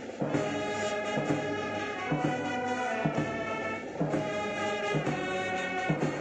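Brass band playing a march, held brass chords over a steady beat about twice a second.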